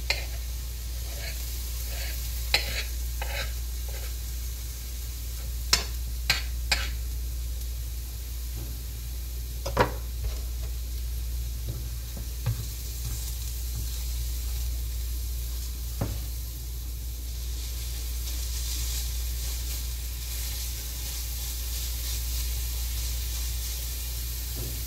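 Minced onion and garlic sizzling in melted butter in a frying pan, while a slotted spatula pushes the onions around and knocks sharply against the pan several times in the first half. A steady low hum runs underneath.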